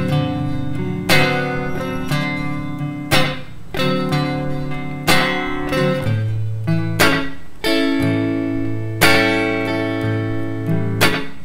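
Guitar playing a 12-bar blues on dominant seventh chords, strummed with a strong accent about every two seconds and lighter strokes between. The chord changes about six seconds in.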